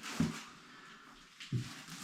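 Two dull knocks with some scuffing, a little over a second apart: handling noise as a toilet is moved into place for setting.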